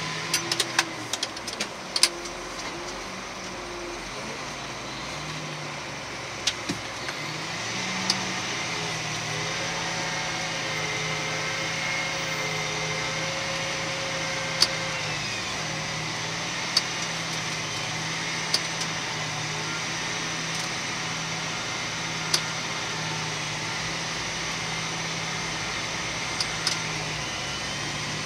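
John Deere 8235R tractor heard from inside its cab, running steadily while pulling a disc through the field: an even engine drone that gets a little louder about eight seconds in. Occasional single sharp clicks sound over it.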